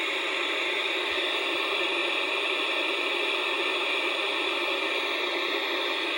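Steady hissing static from the small speaker of a portable black-and-white CRT TV/AM-FM radio with no station tuned in.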